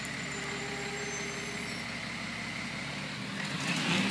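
Rear-loading garbage truck's diesel engine running steadily, its pitch shifting up about three seconds in, with a louder rush of noise near the end.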